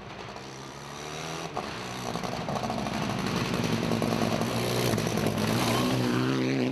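Rally car's engine under hard throttle, getting steadily louder as the car approaches, its pitch shifting up and down with the revs.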